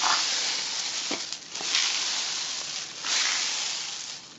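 Homemade cardboard-tube rain stick tipped end over end, the grains inside pouring down through it with a rushing hiss. The hiss swells and fades three times, starting afresh at each turn.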